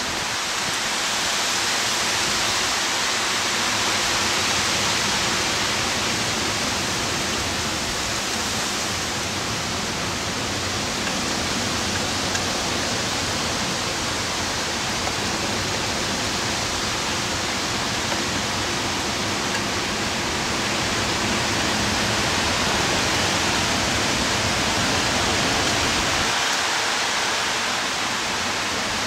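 Heavy hurricane rain pouring down, a steady, fairly loud rush with slight swells.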